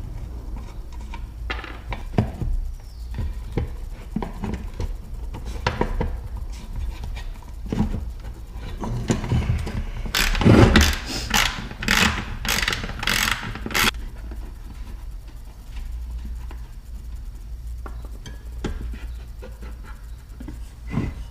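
Socket ratchet and wrench working the nut and bolt off an outboard recoil starter: scattered metal clicks and clinks, then about six quick ratcheting strokes about half a second apart a little past the middle.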